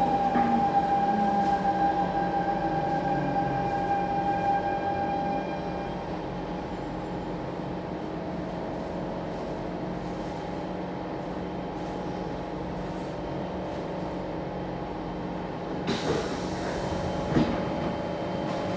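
Siemens C651 metro train braking into a station. Its GTO inverter and traction motors give steady tones that fade out about five or six seconds in as the train slows, over rolling rumble. Near the end, as it stops, there is a short hiss lasting about a second, followed by a click.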